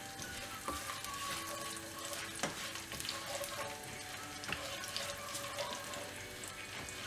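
Whole spices (bay leaves, cinnamon sticks, fennel seeds) sizzling steadily in hot oil in a nonstick pan while they are stirred with a wooden spatula.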